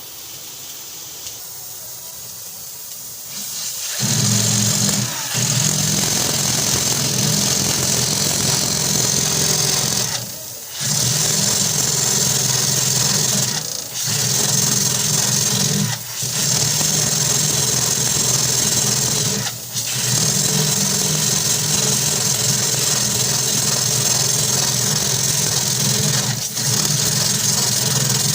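A small electric power tool's motor running loud and steady, starting about four seconds in, with a low hum and a bright, gritty high band. It stops briefly about six times, each for under a second, then runs on.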